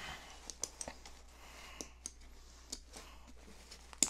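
Plastic side-release buckles and nylon webbing straps on an Eberlestock G4 Operator backpack being unbuckled by hand: scattered sharp clicks with soft rustling of the straps between them, the sharpest click near the end.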